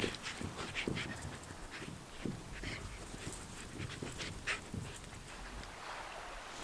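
A dog moving about close by, with a run of short, irregular scuffs and clicks.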